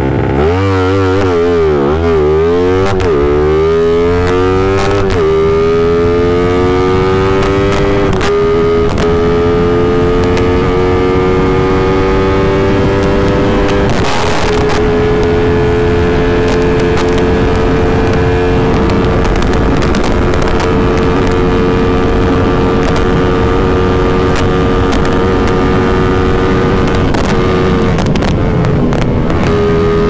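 Yamaha MX King single-cylinder four-stroke engine, bored up to about 170 cc, at full throttle on a top-speed run. Its revs climb and fall back with several quick upshifts in the first eight or so seconds, then hold in top gear with a long, slowly rising pitch near its top speed of about 150 km/h. The pitch dips briefly near the end.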